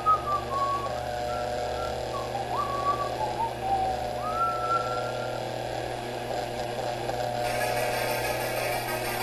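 Whistling in short sliding notes over a steady hum. The whistling fades after about five seconds, and a hiss comes in near the end.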